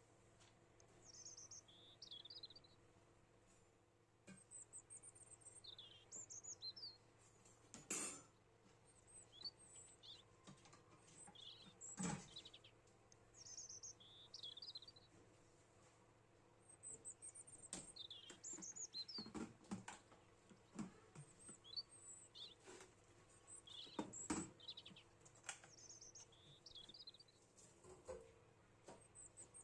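Faint birds chirping: short, quick high calls repeated throughout. A few soft knocks, the loudest about 8 and 12 seconds in and again near 24 seconds.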